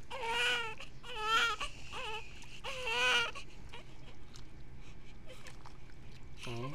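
Newborn baby crying: about four short high-pitched cries in the first three and a half seconds, then quiet.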